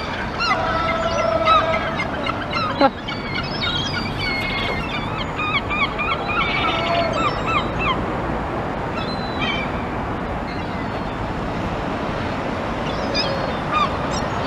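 Gulls calling, a flurry of squawks and yelps through the first half and a few more near the end, over a steady background rush of wind and traffic.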